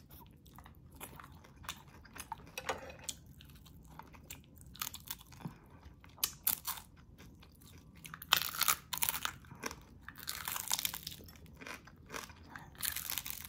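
Close-miked chewing and crunching of crisp fried milkfish (daing na bangus), bitten from the fried head piece. Irregular crunches, with louder stretches about eight seconds in and again near the end.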